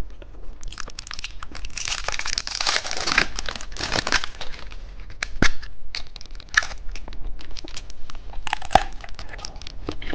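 Plastic candy wrapper crinkling and rustling as it is handled and opened, in irregular bursts with a few sharp clicks.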